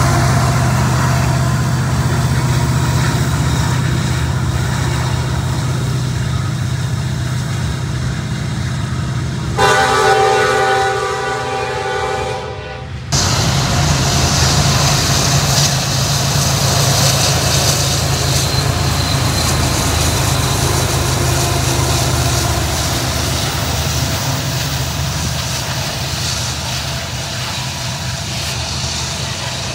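Freight trains rolling past at close range, a steady rumble and rail noise from the passing cars. About ten seconds in, a locomotive horn blows a chord for about three seconds, fading and then cut off abruptly. After that comes the rumble of another freight train's cars passing.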